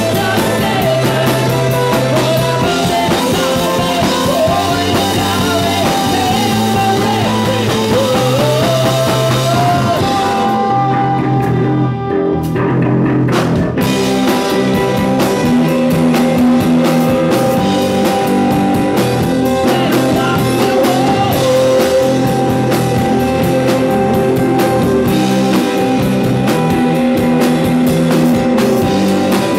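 Rock band playing live: guitars and drum kit with a steady beat, the drums dropping out for a few seconds partway through before the full band comes back in.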